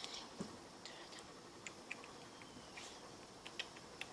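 Faint, scattered clicks and light taps of small objects being handled and set down on a table, over a low room hiss.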